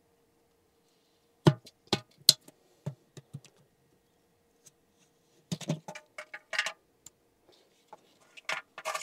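Sharp plastic clicks and knocks in three short clusters as a hand works the knockout seal out of a side port of a plastic drainage inspection chamber.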